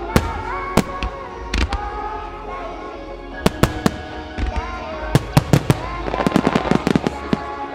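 Aerial firework shells bursting in a series of sharp bangs, a few spaced apart at first, then a rapid cluster of reports about six to seven seconds in, over accompanying music.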